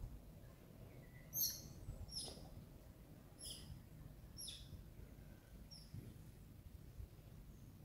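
A bird calling in short, high chirps, repeated irregularly about a second apart, the loudest about a second and a half in, over a low outdoor rumble.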